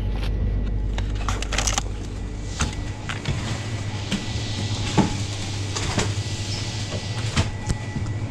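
A vehicle running, heard as a steady low hum, with scattered clicks and rattles; the sharpest knock comes about five seconds in.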